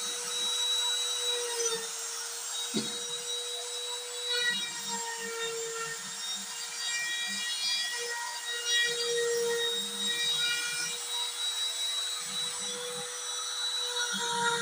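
Trim router spindle of a homemade CNC router running with a steady high whine while its bit carves an MDF panel, with a lower grinding sound that comes and goes as the cut goes on.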